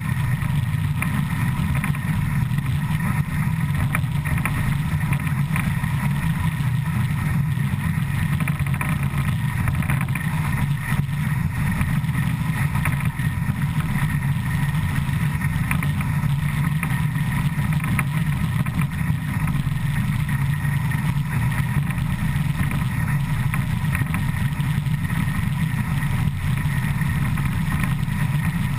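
Škoda-built ČSD steam locomotive 475.179 running at about 100 km/h, heard close beside its driving wheel and rods: a loud, steady rumble that holds even throughout.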